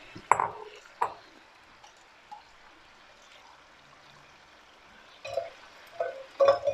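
Lamb and tomato sauce simmering in a frying pan: faint liquid bubbling, with two short pops or knocks in the first second and a few more short sounds near the end.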